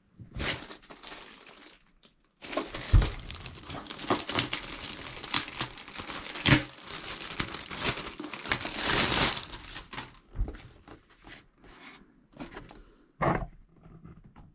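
Crinkling and rustling with several sharp knocks mixed in, the loudest knock about three seconds in.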